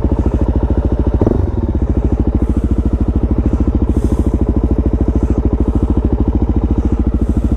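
Supermoto motorcycle engine idling with an even, rapid beat of about a dozen pulses a second, with a brief louder blip about a second in.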